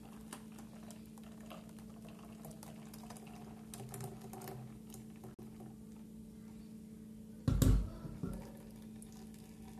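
Blended corn-and-milk mixture pouring from a blender jar through a plastic mesh sieve into a plastic cup: a faint trickle with small clicks over a faint steady hum. About three-quarters of the way in comes one loud thump, the blender jar being set down on the stone counter.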